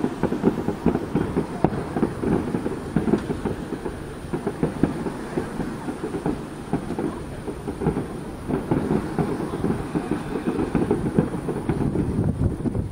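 Distant fireworks barrage: a rapid, unbroken stream of bangs and pops blurring into a low rumble.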